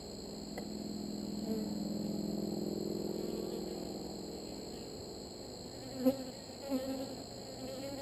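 Honeybees buzzing around an open hive: a low hum that swells for a few seconds as bees fly close, then fades, with a few short louder sounds near the end.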